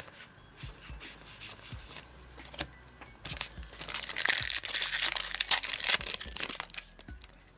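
Foil booster pack wrapper crinkling and being torn open, with cards and packaging handled; the rustling grows louder about three seconds in and eases off near the end.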